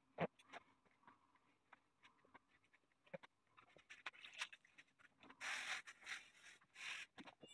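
Faint taps and rustles of a felt hat body and cloth being handled on a wooden hat block, then near the end two bursts of steam hissing as an iron is pressed through a cloth onto the felt, the first about half a second long and the second shorter.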